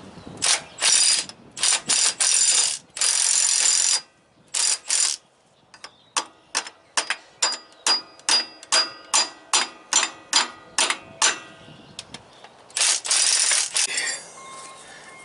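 Cordless half-inch-drive stubby impact wrench hammering on a seized bolt, backing it out: several bursts under a second long, then a quick run of short sharp hits about four a second, then another longer burst near the end.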